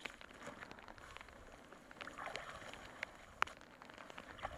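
Raindrops hitting gear in scattered light taps, with the soft rustle of clothing and brush as the hunters push through low spruce; one sharper tap about three and a half seconds in.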